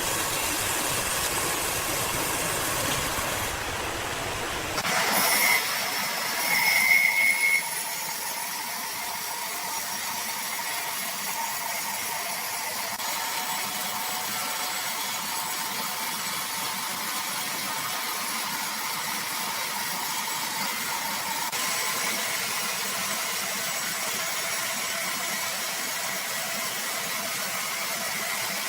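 Sawmill machinery running steadily while a large cedar log is sawn. The sound changes abruptly about five seconds in, followed by a couple of louder bursts with a brief high whine.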